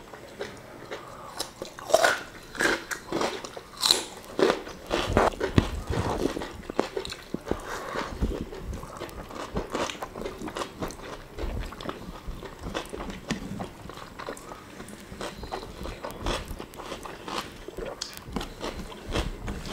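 Close-up eating sounds: irregular crisp crunches and chewing as two people bite into fried chicken, fried tempeh and tofu, and raw vegetables such as long beans. The loudest bites come about two and four seconds in.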